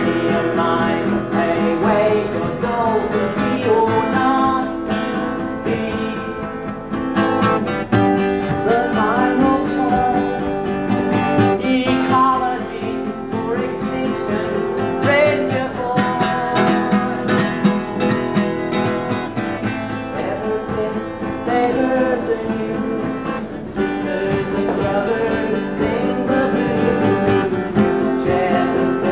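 Live solo folk music played throughout.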